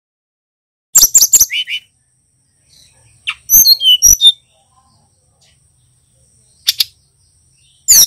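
Caged brown-chested jungle flycatcher calling in short bursts of high, sharp chirps and whistled notes. There are four bursts: a quick run of sharp notes ending in two lower whistles about a second in, a phrase of falling whistles around three and a half seconds, a brief chirp near seven seconds, and another run of notes at the end.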